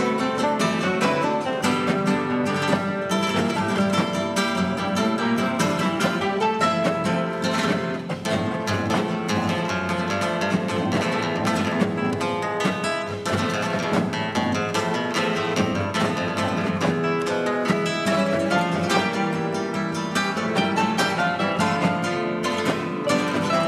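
Instrumental music on a plucked string instrument, playing many quick notes without pause.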